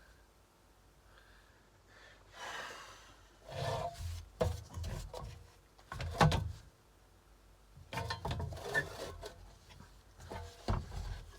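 Hands handling metal tool parts on a bench: irregular rubbing, scraping and knocking, with the sharpest knock about six seconds in.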